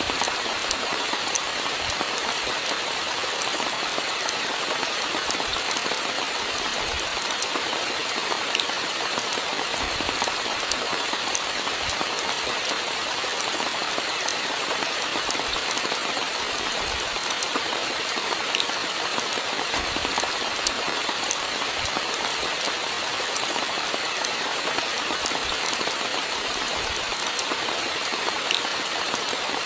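Steady rainfall, a dense hiss with many separate drops ticking on a hard surface and a few soft low thuds.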